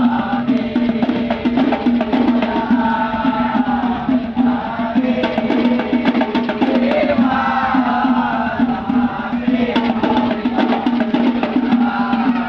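Music with busy drumming and a wavering melody line over a steady held low note.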